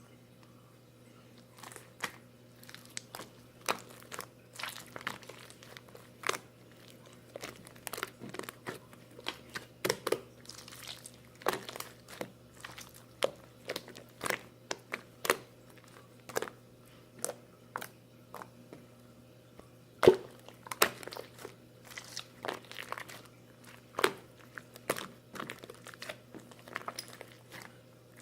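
A series of short, sharp crunches and crackles at irregular intervals, about one or two a second, over a faint steady hum.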